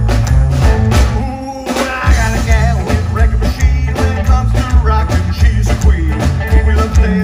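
A live rockabilly band playing: upright bass pulsing under electric guitar and drums.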